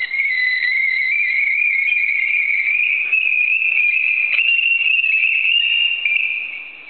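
A loud, high-pitched whistling tone held for about six seconds, creeping slowly upward in pitch, then fading away near the end.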